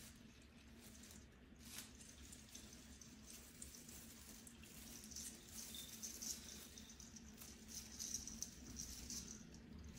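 Faint rustling and crinkling of artificial Christmas tree branches and tinsel garland as a cat climbs inside the tree, busier in the second half, with a light click about two seconds in. A low steady hum sits underneath.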